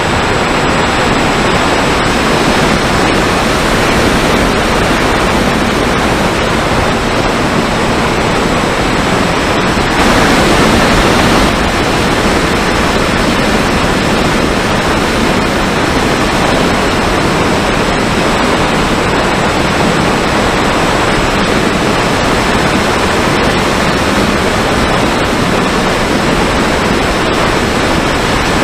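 Steady rush of airflow and propeller noise picked up by the onboard camera of a Mini Talon RC plane in flight, with a faint steady high whine. It swells briefly for a second or so about ten seconds in.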